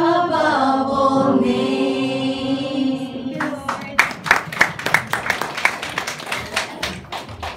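Four women's voices singing in close harmony, holding the song's final chord for about three seconds, then hand clapping that starts about three and a half seconds in as the singing stops.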